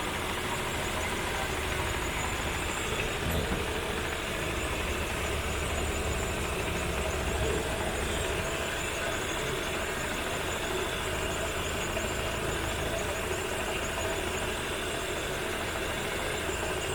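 Hyundai i10 petrol engine idling steadily under an open hood.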